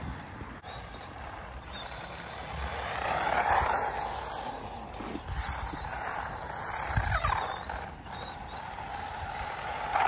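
Small electric RC truck driving on asphalt, its motor whining with tyre noise; it swells about a third of the way in and again about two-thirds in, where the whine glides in pitch.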